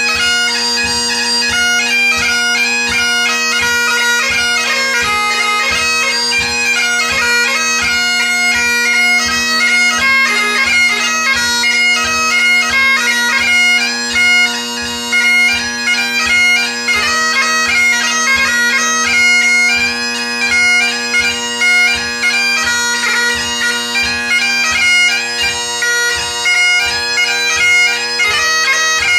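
Great Highland bagpipe played solo: the steady drones sound under a chanter melody that moves quickly from note to note.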